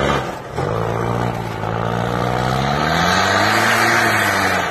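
Engine of a 4x4 pickup truck revving hard as it drives through deep snow. The revs drop sharply about half a second in, then climb slowly for a few seconds and fall away again near the end.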